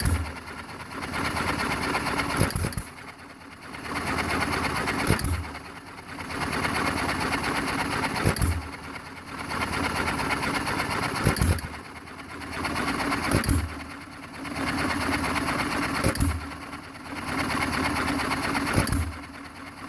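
John Deere 1½ hp single-cylinder hit-and-miss engine running after its rebuild, firing a sharp stroke about every two to three seconds and coasting on its flywheels in between.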